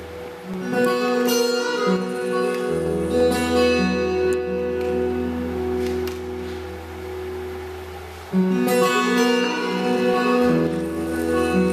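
Steel-string acoustic guitar played fingerstyle: plucked chords and melody notes left to ring, with a strong new chord about a second in and a louder one struck near the end.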